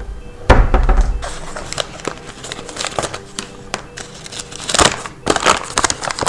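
A paper flour bag crinkling and rustling as it is handled and opened, densest near the end. A heavy thud about half a second in.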